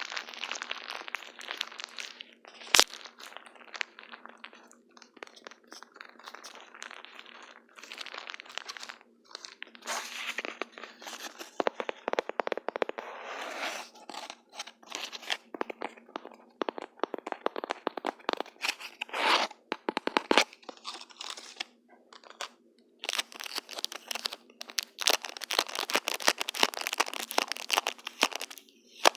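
Close-miked crackling, scratching and tearing from adhesive tape and a magic drawing slate being handled. The sound is a dense run of irregular small clicks that comes in louder bursts, with one sharp snap about three seconds in.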